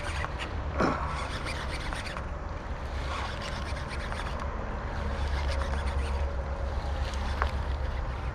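Wind buffeting the microphone, with a rasping rub from a fishing reel being cranked as a hooked bass is reeled in.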